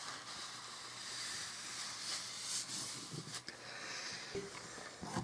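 Paper towel being rubbed over a laminate floor seam to wipe away beaded-up wood glue, a faint, soft rustling scrub with a few light ticks.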